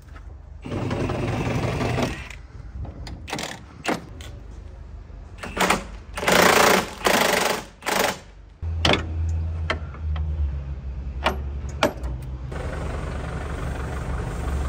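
Bursts of a rattling power tool working on the truck's cab mounts, the loudest around the middle, among knocks and clicks of tools. About nine seconds in, the forklift's engine starts and settles into a steady idle.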